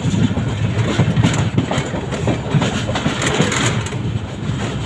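Train running on the rails as it pulls out of a station: a steady low rumble with irregular wheel clacks and knocks.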